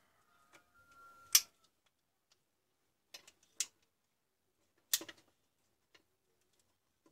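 Sharp clicks from an angle grinder's switch being handled under test with multimeter probes: three loud clicks about one and a half seconds apart, with a few fainter ticks between.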